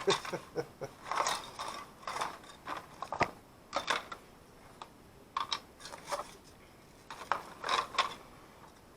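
Small plastic parts and circuit boards clicking, clattering and scraping as they are handled and put into a plastic food container, in irregular bursts with one sharp click about three seconds in.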